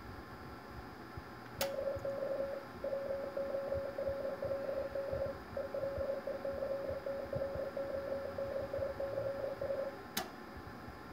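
Radio transceiver's CW sidetone: a steady single-pitched beep held for about eight seconds with two brief breaks, sounding while a carrier is keyed to drive the HF linear amplifier. A sharp click marks the key-down and another the release.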